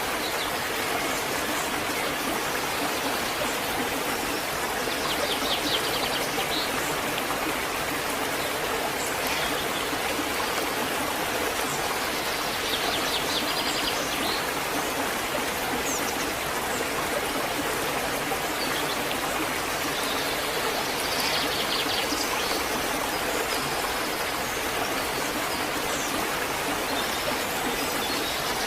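Waterfall: a steady, even rush of falling water. A bird gives short, high trilling calls four times over it.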